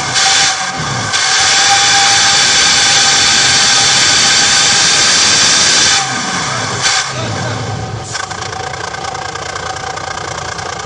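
Intercity bus engine revving through a growling exhaust, its pitch rising and falling once near the start and again from about six to eight seconds in. A loud steady hiss runs over it through the first six seconds and dies away after about eight seconds.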